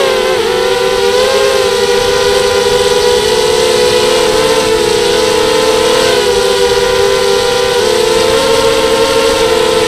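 FPV racing quadcopter's electric motors and propellers whining in flight, a loud steady buzz whose pitch wobbles up and down with the throttle, dipping briefly a few times.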